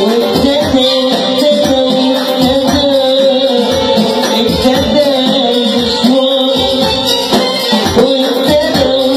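Live Arabic band music: a wavering, sustained melody over a steady percussion beat.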